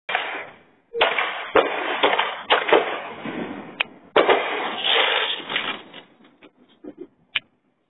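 Consumer fireworks going off close by: a run of sharp bangs with dense crackling between them, thinning to a few scattered pops near the end.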